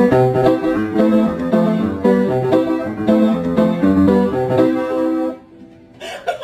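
Background music: a plucked guitar melody of quick notes that stops about five seconds in.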